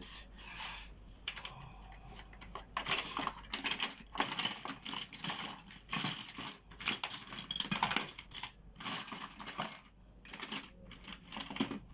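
Irregular clicking and clinking of small parts and hand tools being handled, with short rattling clusters from about three seconds in.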